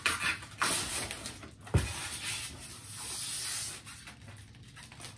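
Cardboard box and packaging being handled, rubbing and scraping, with a single thump a little under two seconds in.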